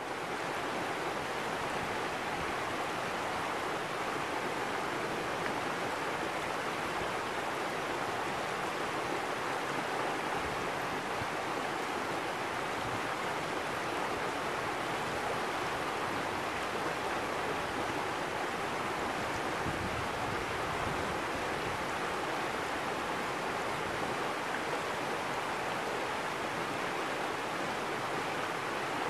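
Shallow stream rushing over rocks, a steady unbroken water noise.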